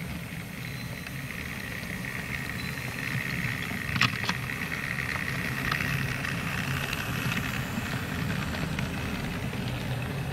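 Model freight wagons rolling past on the track, a steady whirring rumble of wheels on rail, with two sharp clicks about four seconds in as wheels run over a rail joint.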